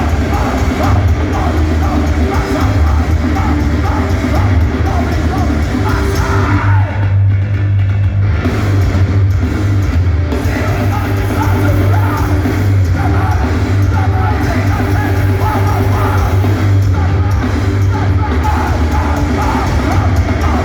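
Hardcore punk band playing live at high volume, with heavy bass and vocals over guitars and drums. The upper range drops back briefly about seven seconds in before the full band returns.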